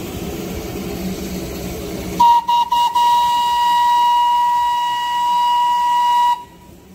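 Steam whistle of Darjeeling Himalayan Railway B-class locomotive 782 'Mountaineer': a few quick toots, then one long steady blast at a single pitch that cuts off sharply about six seconds in. Before it, a steady low hum.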